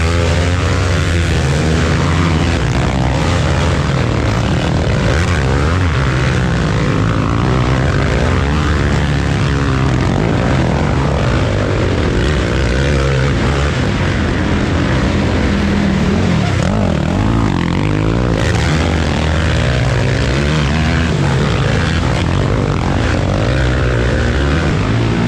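Racing ATV engines running hard without a break, the pitch rising and falling as the throttle is worked.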